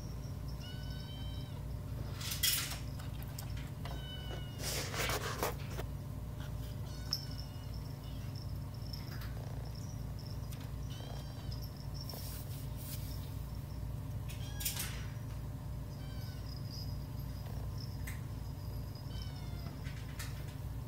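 Kittens mewing repeatedly: short, high, thin mews every second or two, with a few louder scraping and rustling noises in between. A steady low hum runs underneath.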